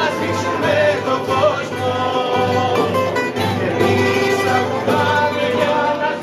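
Live Greek folk song: men singing to acoustic guitar, a bouzouki and a large frame drum.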